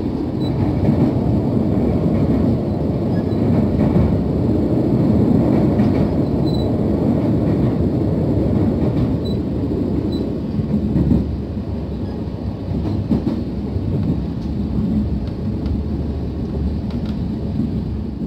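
Passenger train running fast, a steady low rumble of wheels on rails and carriage noise, heard from inside the carriage.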